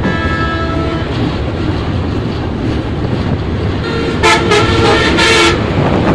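Passenger train running with a steady low rumble while a vehicle horn honks twice in quick succession about four seconds in; a shorter horn tone fades out in the first second.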